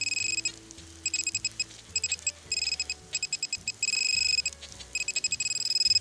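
Metal-detecting pinpointer probe beeping in quick runs that run together into a steady tone for moments at a time, the pinpointer closing in on a metal target, a bronze arrowhead, in the dug soil.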